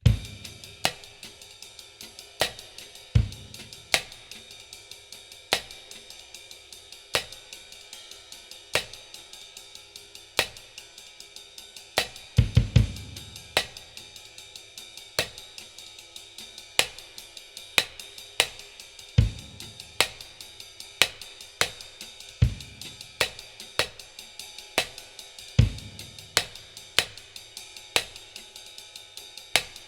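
Drum kit groove with steady hi-hat ticks and occasional kick drum, and a plastic cutting board stacked on a 12-inch splash cymbal struck on the backbeat about every 0.8 seconds as a clap-like accent. A quick run of kick drum hits comes about halfway through.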